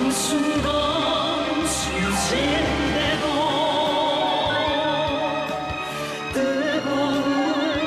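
A song with orchestral accompaniment: a singer holds long, wavering notes in an operatic style over strings.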